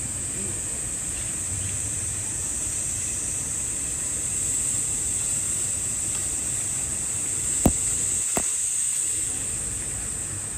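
Steady high-pitched buzz of a summer cicada chorus, with two sharp clicks close together near the end.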